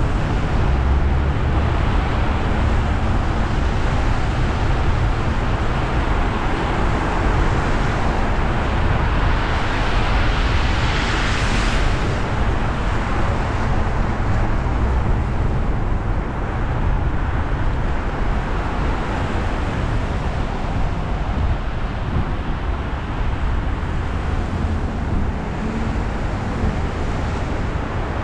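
Car driving on a wet road: steady tyre hiss over a low rumble, with a louder hiss that swells and fades about eleven seconds in.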